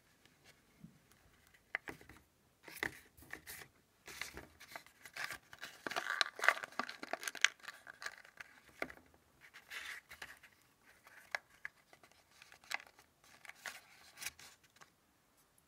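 A sheet of origami paper, folded into a boat, crinkling and crackling as hands crease and open it. The rustling starts about two seconds in as a run of sharp crackles, busiest in the middle, then thins out.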